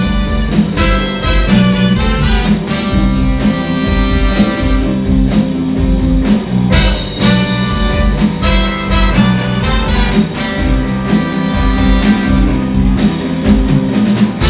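Live band playing with a steady drum beat: electric guitars, violin and upright bass, with trombone and trumpet.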